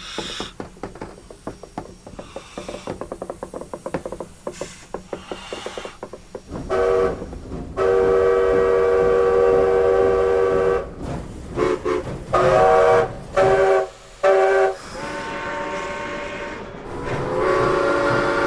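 Train with rapid clicking from its wheels, then its multi-tone horn sounding a series of blasts, long and short, with a last long blast near the end.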